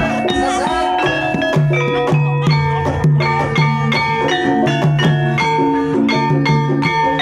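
Instrumental Javanese gamelan-style music: interlocking struck tuned percussion with ringing, decaying notes over a repeating low note and a drum.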